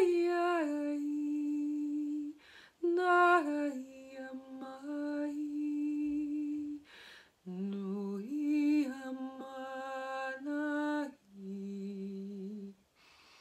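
A woman's voice singing wordless light-language tones: long held notes that step and slide in pitch, in four phrases with short breaths between them, the last phrase lower than the rest.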